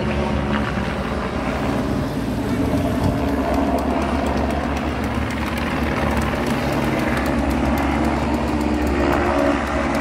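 Steady engine drone with a low hum running through it. In the second half a fast, evenly spaced chatter joins it higher up.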